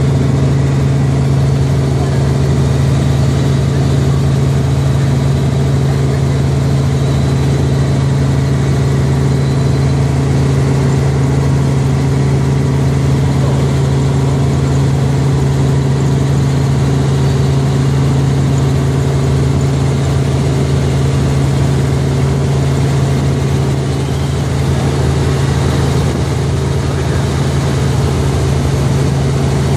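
Helicopter engine and rotors heard from inside the cabin in steady forward flight: a loud, even drone with a strong low hum that does not change.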